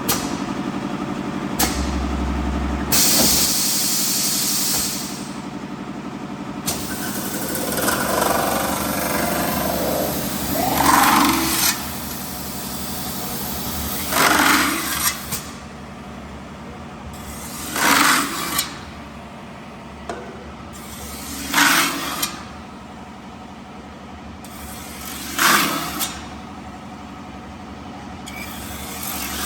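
CNC metal spinning lathe running with a steady machine hum. Several seconds in there is a stretch of bright hiss. From the middle on, short loud bursts with a rising squeal-like sweep repeat about every three and a half to four seconds.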